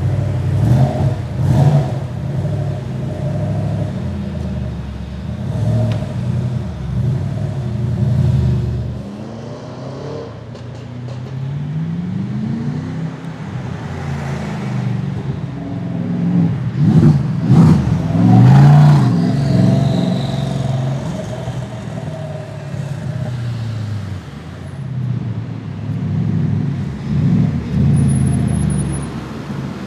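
Gumpert Apollo S's 4.2-litre twin-turbo V8 revving and accelerating hard in several runs, its pitch rising and falling, loudest about two-thirds of the way through.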